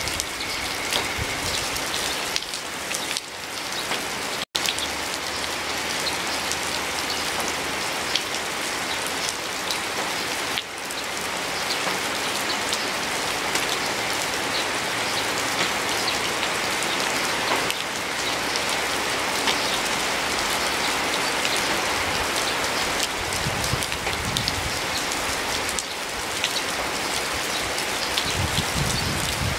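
Steady rain falling, a dense hiss full of many separate close drops. The sound cuts out for an instant about four and a half seconds in.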